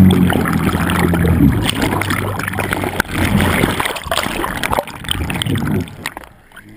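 Water rushing and bubbling over an underwater camera as it is lifted up through the sea surface, full of knocks and splashes, with a low hum during the first second and a half. The noise falls away sharply near the end as the camera comes clear of the water.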